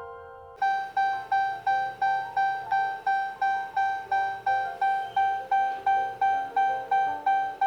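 Background piano music. A new piece starts about half a second in, with a repeated high note struck about three times a second over a lower line that moves.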